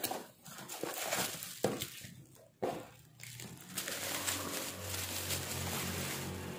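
Reel packaging being opened and handled: cardboard and plastic rustling and crinkling, with a couple of sharp clicks in the first few seconds and a steadier rustle after.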